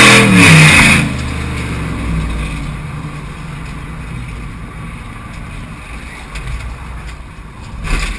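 Race car engine passing close, loud, its pitch dropping as it goes by, then the lower rumble of cars running around the track, with a thump near the end.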